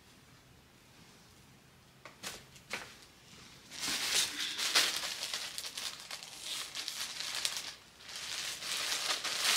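Clear plastic packaging bag crinkling as it is handled and opened. A few short crackles come about two seconds in, then steady crinkling from about four seconds in, broken by a brief pause near the end.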